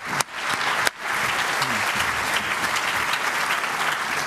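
Audience applauding. The clapping is briefly interrupted near the start, then holds steady from about a second in.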